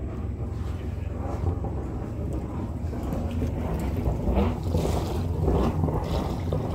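Catamaran's port engine running steadily as a low hum, with its raw-water cooling flowing again: water spurting from the hull outlet and splashing onto the sea, the splashing louder in the second half. The flow shows the new impeller and the cleared air lock are working.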